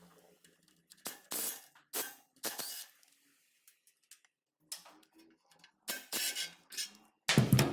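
Hand tools clinking and scraping against metal in a string of short, irregular knocks and rattles while the ABS sensor bracket bolts are taken off a truck's front wheel hub, with a louder clank and thud near the end.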